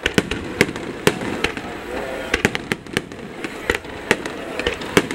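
Aerial fireworks shells bursting in rapid succession, sharp irregular bangs about three a second.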